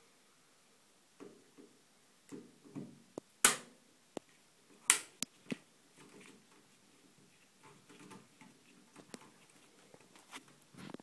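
Handling noises from unboxing a PC case: sporadic light rustles and taps, with a few sharp clicks and knocks, the two loudest about three and a half and five seconds in.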